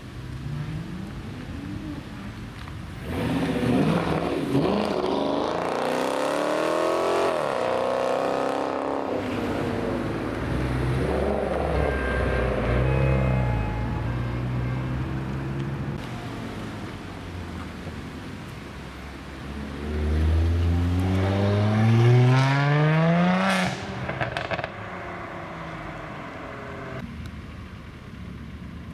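Modified cars pulling away one after another, their engines revving up as they accelerate. The loudest is a long rising rev about two-thirds of the way through that cuts off abruptly.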